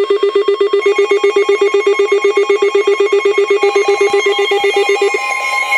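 Electronic emergency alert attention tone: a low tone pulsing rapidly like a ringing telephone bell, with further alert tones layered on about a second in and again near four seconds. The pulsing low tone stops a little after five seconds, leaving steady higher tones.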